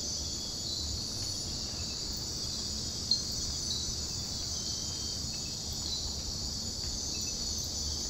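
Night-time rainforest insect chorus: a steady, high-pitched drone that holds unchanged throughout.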